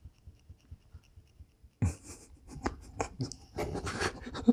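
A sudden thump, then a run of clicks and rustling handling noises for the rest of the clip, as of things being moved and knocked on a table.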